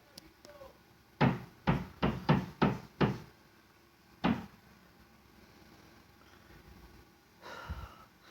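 Loud banging knocks: six hard knocks in quick succession starting about a second in, then a single knock about a second later.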